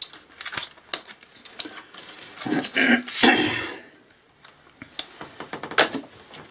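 A series of sharp clicks and plastic handling noises from computer parts being worked by hand, with a louder, longer stretch of handling noise around three seconds in.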